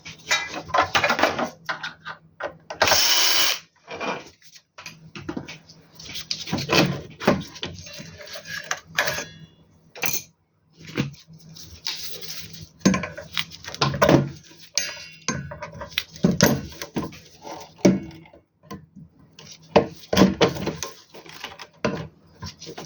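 Screws and metal parts being worked loose and handled while a solar inverter is dismantled: irregular clicks, rattles and knocks, with one steady burst lasting about a second near the start.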